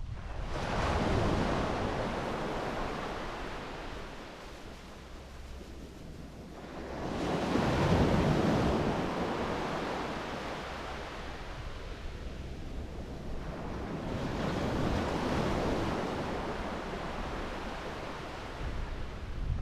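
Sea waves breaking and washing up on a sandy beach, swelling and fading three times, roughly every seven seconds, the loudest surge about eight seconds in. There is some wind rumble on the microphone.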